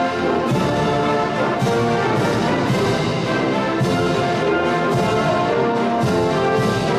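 Military brass band playing a march, with sousaphones and trumpets and a steady beat about twice a second.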